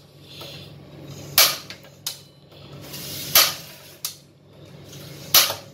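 Automatic ignition of a Lifelong two-burner gas stove clicking four times, a second or two apart, as the knob is worked; the burner does not catch.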